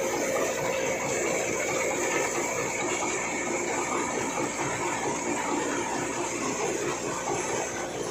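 Thresher running steadily under load: a dense, even mechanical rush with a steady high hiss, as it throws chaff and dust out from beneath the machine.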